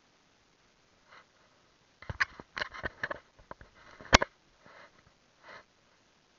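A few short sniffs, with a cluster of sharp clicks and knocks among them; the loudest knock comes about four seconds in.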